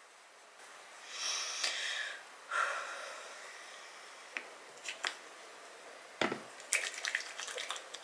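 Soft rubbing of a cotton pad wiped over closed eyelids, then a few sharp clicks and a thud. Near the end comes a wet, squishy crackling as face-wash gel is worked over the face.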